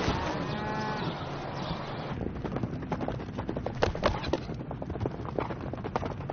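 A horse whinnies in one long, wavering call lasting about a second and a half. It is followed by the irregular thud of hooves on dry, dusty ground as a horse gallops and bucks.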